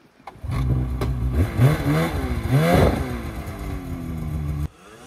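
Snowmobile engine revved under load while the sled is worked out of deep powder, the pitch rising sharply twice before settling; the sound cuts off suddenly shortly before the end.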